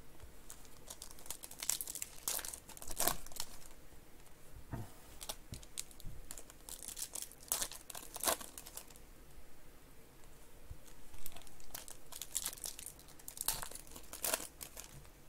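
Foil wrappers of Panini Donruss Optic basketball card packs crinkling and tearing as they are opened by hand, in irregular bursts of crackling.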